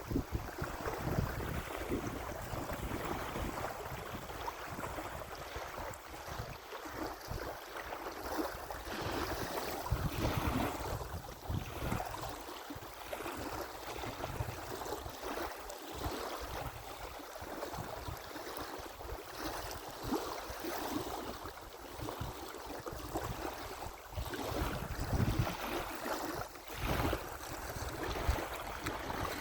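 Moving water washing steadily, with wind gusting over the microphone in irregular low rumbling buffets.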